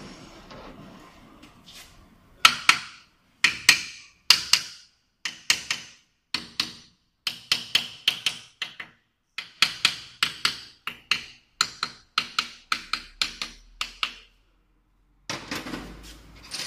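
Hammer tapping crankshaft main bearing caps down into their seats on a bare engine block: sharp, ringing metallic taps in quick groups of two or three, for about twelve seconds. After a short pause there is a duller clatter of parts being handled near the end.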